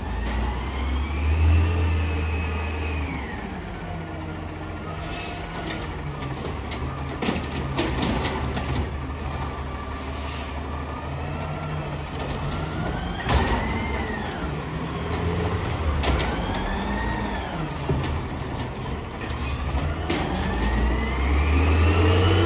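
Peterbilt 320 garbage truck with an Amrep HX-450 automated side-loader arm at work: the engine revs up and down, rising and falling in pitch, as the hydraulic arm lifts and dumps a cart, with a few bangs of the cart against the hopper around the middle. Air brakes hiss, and the engine revs hard again near the end as the truck pulls away.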